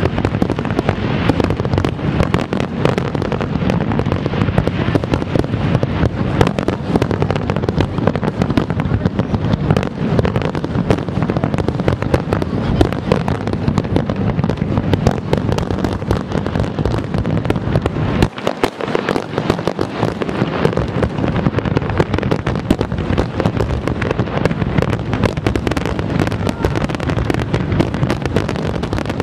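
Aerial fireworks display: a dense, continuous barrage of shell bursts and crackling, the bangs following one another without pause, with a brief dip in the low rumble about two-thirds of the way through.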